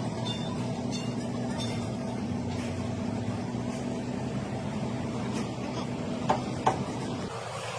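A steady low engine drone, with two sharp clicks about six and a half seconds in; the drone drops away shortly before the end.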